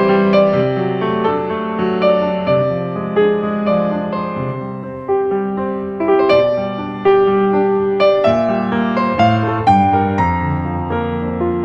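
Background piano music: struck notes and chords that ring out and fade, a new one every second or so.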